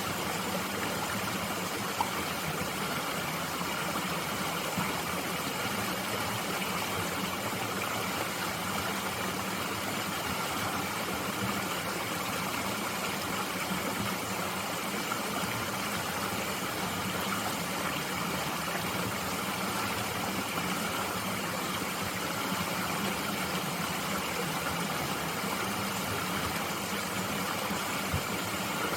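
Mountain stream flowing, a steady rushing of water with no change in level.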